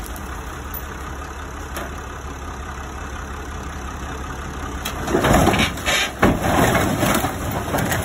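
A heavy machine's engine running steadily as it works a stack of wrecked cars. About five seconds in it gets louder and rougher, with knocks and scraping that fit metal car bodies being shifted.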